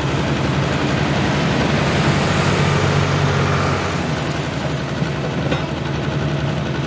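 Ford light-limited turbocharged pulling tractor engine idling steadily, a deep even rumble, while hooked to the sled. A rushing hiss swells briefly in the middle.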